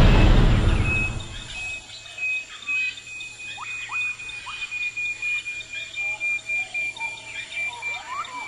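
Forest ambience of scattered chirping birds over a steady, high, rapidly pulsing whistle. It opens on a loud low rumble that dies away over the first second and a half.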